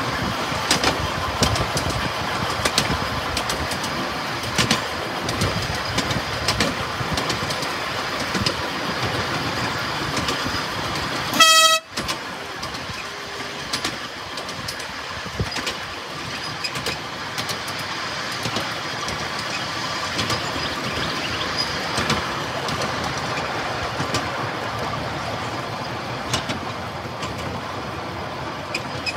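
Miniature railway train running along narrow-gauge track, its wheels rattling and clicking over the rails. A little before halfway through, the locomotive gives one short, high toot.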